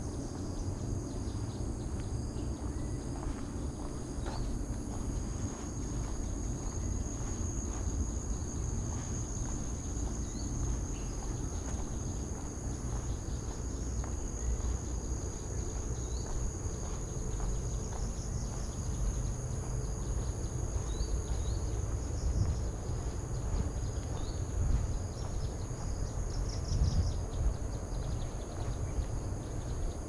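Insects shrilling in a steady high-pitched drone, with a few short pulsed chirps in the second half, over a constant low rumble.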